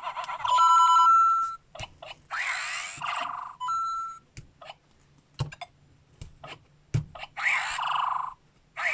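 LEGO Luigi interactive figure's small built-in speaker playing electronic sound effects: a loud steady beeping jingle, then short chirpy effects, with a few sharp clicks in between.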